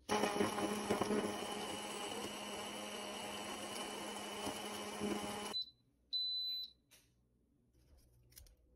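Countertop blender running at high speed, blending coriander leaves and water into a green paste, with a steady motor hum; it stops abruptly about five and a half seconds in. A short high electronic blip and then a single beep of about half a second follow.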